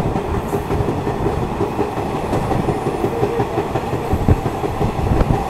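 DEMU passenger train running along the line: a steady rumble with the wheels clattering over the track, one heavier knock a little past four seconds in.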